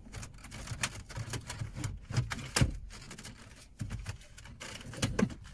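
Two kitchen knife blades slid down the sides of a car CD player, clicking and scraping against the unit and the plastic dash as it is worked loose without removal keys: a run of irregular light clicks, the sharpest about two and a half seconds in.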